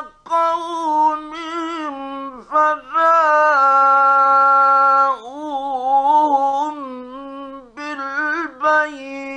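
A male Quran reciter chanting in the melodic mujawwad style, heard on a 1956 Egyptian Radio recording. Several drawn-out phrases with brief pauses between them, ornamented runs, and one long held note about three seconds in.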